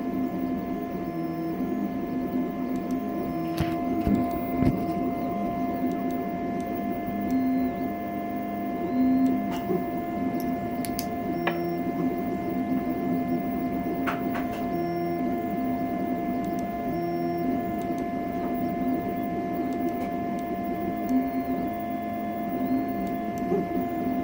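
Conveyor-belt CoreXY 3D printer running, its stepper motors whining in short tones that keep changing pitch as the head and belt move, over a steady fan hum, with a few scattered ticks.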